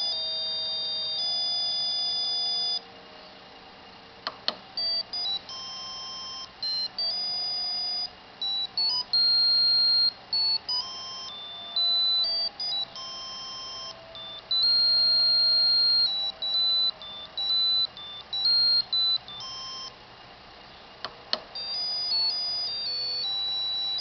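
Monophonic beeping ringtone melodies played from RTTTL ringtone code by an ATmega8 microcontroller, one note at a time in quick steps of pitch. One tune ends about three seconds in; after a click a second tune plays, and another click near the end starts a third.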